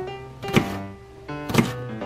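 Kitchen knife chopping a Japanese long green onion on a cutting board: two sharp knocks about a second apart, over guitar background music.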